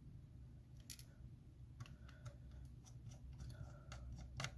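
Faint, scattered light clicks of a precision screwdriver and tiny metal screws being worked out of an iPhone 8 Plus's connector bracket, with one sharper click near the end.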